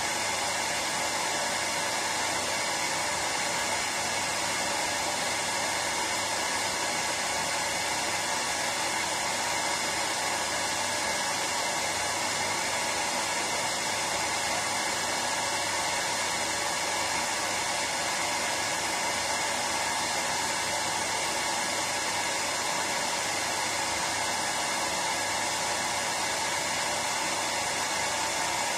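Hair dryer running steadily: a continuous even rush of blown air with a low motor hum, unchanging throughout, used as soothing white noise for a baby's sleep.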